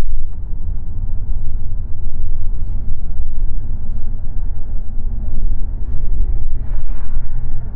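Road and wind noise of a car driving along, heard from inside the cabin: a steady low rumble.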